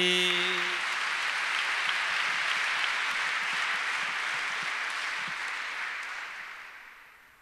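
Audience applauding. A man's final sung note fades out under it about a second in, and the clapping dies away near the end.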